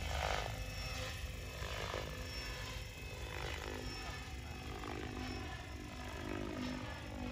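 Radio-controlled helicopter in flight: a steady motor and rotor whine, with several brief swells of blade noise as it swoops and flips.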